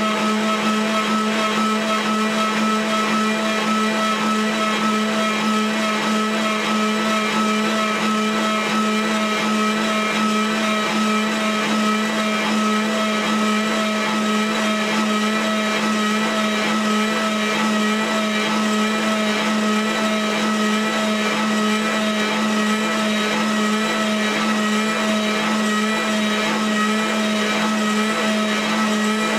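Kress router spindle on a home-built CNC mill driving a 3-flute 8 mm carbide end mill through aluminium in a side-milling cut: a steady, even whine with a strong low hum and cutting noise over it.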